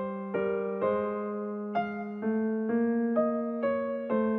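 Background music: a slow, gentle piano melody, a new note struck about twice a second over a held low note.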